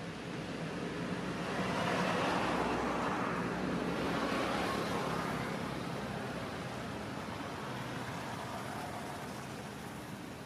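A road vehicle passing by, a rush of tyre and engine noise that swells over the first couple of seconds, peaks, and slowly fades away.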